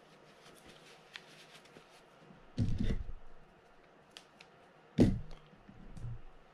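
Hands cleaning and handling a fishing-reel crank handle: soft rustling of a paper towel and small metal clicks, broken by two loud, dull thumps about two and a half and five seconds in, the second sharper.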